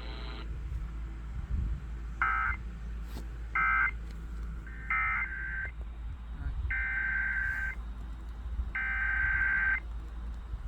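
Emergency Alert System SAME digital data bursts: five buzzy, warbling tone bursts spaced about one to two seconds apart, the first two short and the last two about a second each. These coded bursts frame a broadcast alert message.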